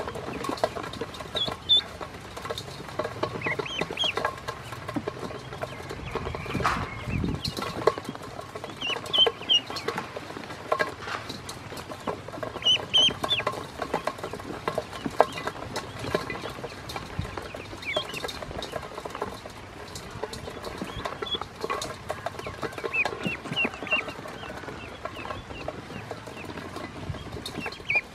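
A group of ducklings peeping on and off in short, high chirps while they dabble in a stainless steel bowl, with many sharp clicks and taps from their bills pecking against the metal.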